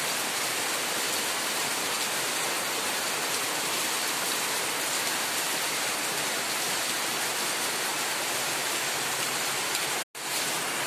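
Steady rain falling, a dense, even hiss of drops. The sound cuts out for an instant near the end.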